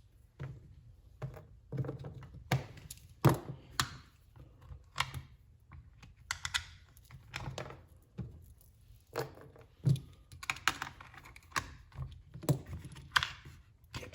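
Cordless impact driver being taken apart by hand: irregular clicks and knocks of a screwdriver and the tool's plastic housing parts, with a few short scrapes.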